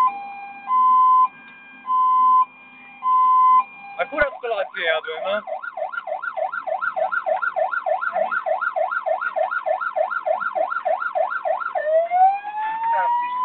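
Fire engine's electronic siren heard from inside the cab. It starts as two alternating tones, a full hi-lo cycle about every 1.2 seconds. About four seconds in it switches to a fast yelp that rises and falls about three times a second, then near the end to a slow rising wail.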